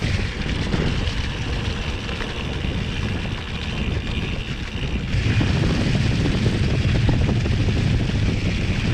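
Wind buffeting a GoPro camera's microphone while riding a mountain bike, with the tyres rumbling over a forest trail; the noise gets louder about five seconds in.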